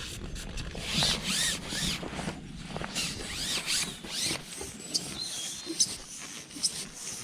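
Small birds chirping in quick, high calls that rise and fall in pitch, repeated over and over, with a brief whistle about five seconds in.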